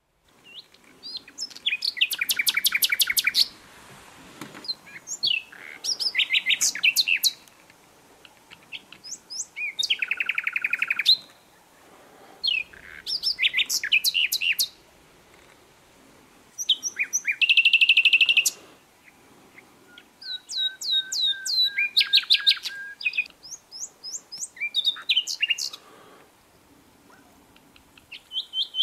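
A songbird singing in repeated phrases, each about two seconds of fast trilled notes, with short pauses between them.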